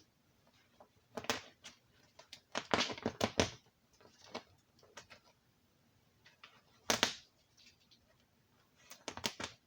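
Irregular clicking and scraping handling noises from hand work on materials, in short clusters about a second in, around three seconds, at seven seconds and near the end.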